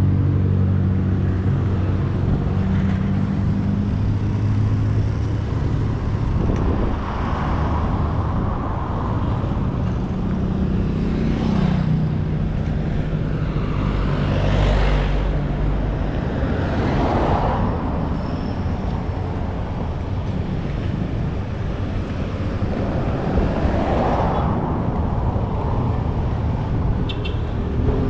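Road traffic: a motor vehicle's engine running steadily at low revs for the first half, with several vehicles passing one after another, each swelling up and fading away.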